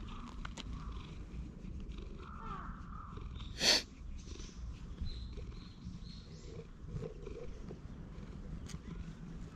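Tabby cat purring steadily as it is stroked, a low rumble close to the microphone. A short, loud, scratchy burst of noise comes a little over three and a half seconds in.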